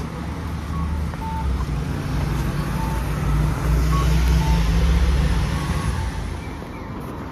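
Street traffic at an intersection: a low vehicle rumble that swells to its loudest about five seconds in and fades near the end, with short high beeps now and then.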